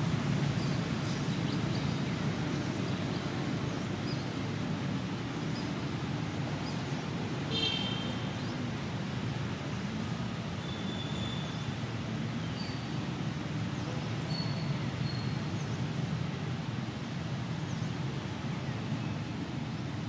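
Steady low outdoor background rumble, with a few short high chirps scattered through it, the clearest about a third of the way in.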